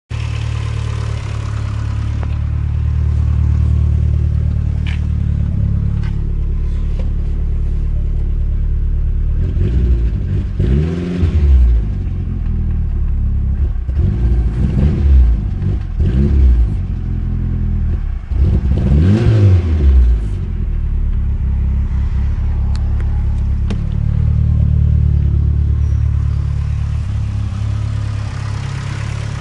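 Talon's engine idling, blipped up in revs about four times in the middle and then settling back to idle, with a tick that the owner takes for a lifter tick.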